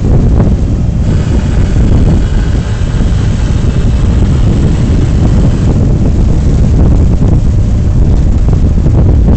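Strong wind buffeting the microphone: a loud, steady, low rumble, with a stretch of rushing hiss from about a second in to about six seconds in.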